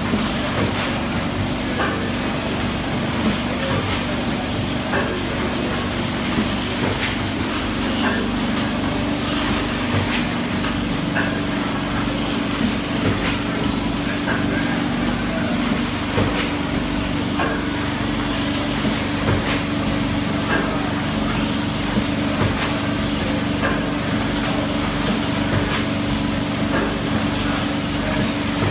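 Kiefel KMD 78 roll-fed thermoforming machine running: a steady hum and hiss with frequent short clicks and knocks from its moving stations.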